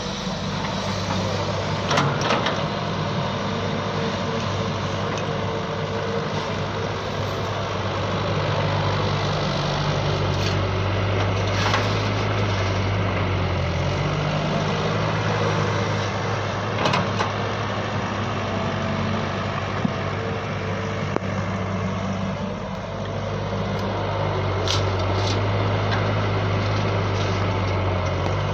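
Electric motors of radio-controlled toy excavators running, a steady whirr whose pitch shifts up and down as the controls are worked, with a few sharp clicks.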